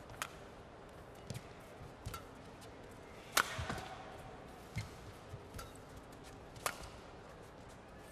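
Badminton rackets striking a shuttlecock back and forth in a rally: sharp cracks every one to two seconds, the hardest hit about three and a half seconds in, over a low murmur from the arena crowd.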